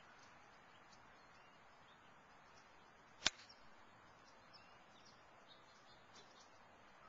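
A golf club striking a ball: one sharp click about three seconds in. Faint bird chirps sound in the background.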